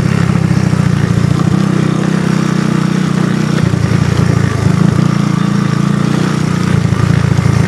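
ATV engine running close and loud at a fairly steady speed, its note wavering slightly with small changes in throttle.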